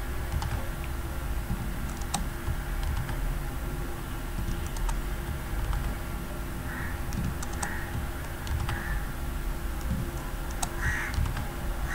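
Scattered computer keyboard keystrokes and clicks while text is pasted line by line into a code editor.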